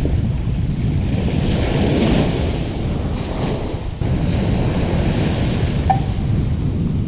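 Wind buffeting the microphone over the wash of small waves breaking on a sandy beach.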